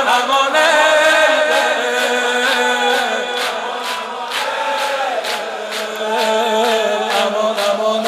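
Shia Muharram nohe chanted in unison by a group of male mourners. From about three seconds in, rhythmic chest-beating (sineh-zani) sounds about twice a second.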